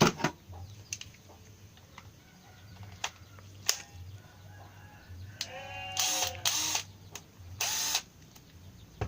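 A rooster crowing in the background about five to eight seconds in, its call loud and rasping. A few sharp clicks and knocks from handling come before it and at the very end.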